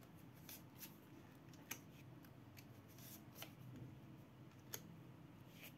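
Near silence with a handful of faint, sharp clicks and light rustles spread through it.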